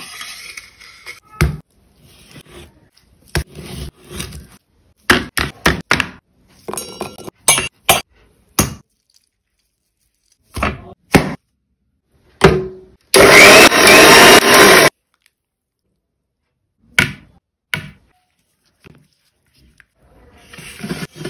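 A run of short, separate food-preparation sounds: ingredients going into a steel bowl, a lemon being squeezed, and a thick marinade being worked over chicken pieces. About thirteen seconds in comes the loudest part, a noisy burst lasting about two seconds.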